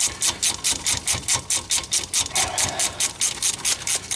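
Socket ratchet clicking rapidly and evenly, about eight clicks a second, as a front wheel hub mounting bolt is backed out.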